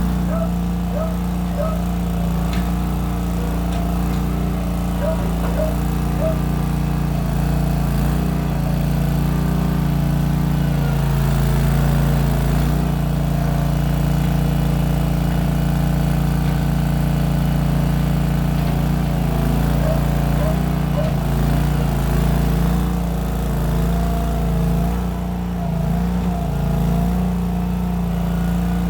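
Case 1816 skid steer's replacement engine running steadily, its pitch shifting slightly as it works, about halfway through and again near twenty seconds in. A few short, high chirping squeaks come through in the first several seconds and again around twenty seconds in.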